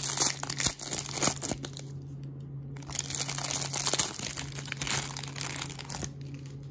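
Clear plastic wrapper around a stack of baseball cards crinkling and tearing as it is peeled open, in two spells with a short lull about two seconds in. A faint low steady hum runs underneath.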